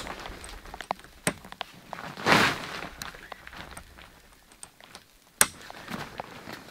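Handling noises around a canvas awning room in snow: scattered light clicks and knocks, a short rustling crunch about two seconds in, and a sharp click near the end.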